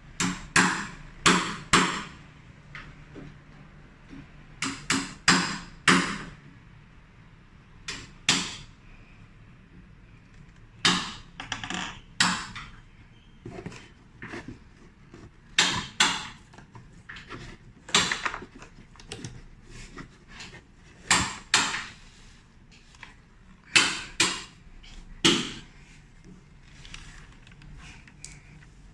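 A series of sharp knocks, about twenty in all, coming irregularly in clusters of one to four with pauses of one to three seconds between them.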